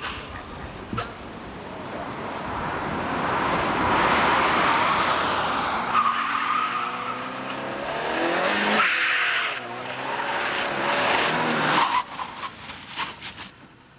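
A car's tyres squealing and skidding on tarmac as it is driven hard through a cone slalom. From about six seconds in, its engine note rises and falls as it revs. The sound drops away sharply about two seconds before the end.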